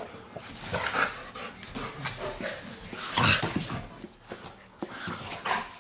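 A puppy and an older dog play-fighting, with short yips and barks in irregular bursts; the loudest comes about three seconds in.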